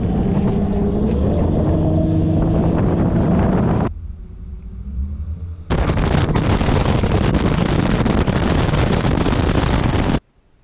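Bass boat's outboard motor running under way, its pitch rising as it speeds up in the first few seconds. The level drops sharply for about two seconds, then loud wind buffets the microphone over the running motor until it cuts off suddenly near the end.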